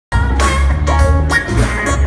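Jazz-funk band playing live in a concert hall, a heavy bass line under drums and pitched keyboard and horn notes, recorded from within the audience.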